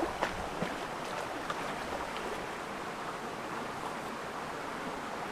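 A steady, even rushing noise, with a few light knocks in the first second.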